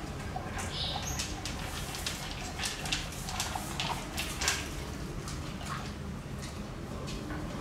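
Pit bull eating dry kibble from a stainless steel bowl: irregular crunching and chewing clicks, with kibble knocking against the metal bowl.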